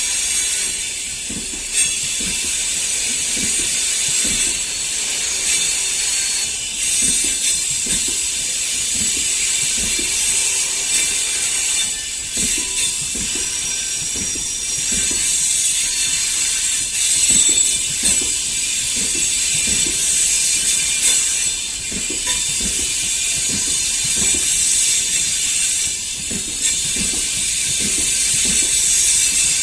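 Freight train wagons rolling by: the wheels knock over rail joints again and again, under a steady high hiss.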